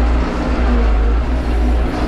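Tractor engine running steadily under way, heard from inside the cab, with a deep, constant rumble.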